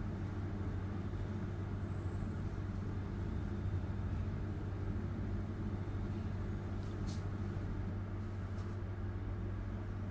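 A steady low mechanical hum, with a few faint light clicks about seven and eight and a half seconds in.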